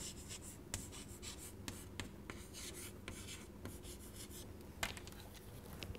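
Chalk writing on a chalkboard: a series of faint, short scratching and tapping strokes as a word is written out, with one sharper tap about five seconds in.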